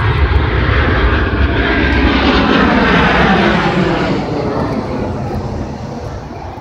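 Aircraft passing over: a loud rushing engine noise that builds to a peak a few seconds in and then fades away.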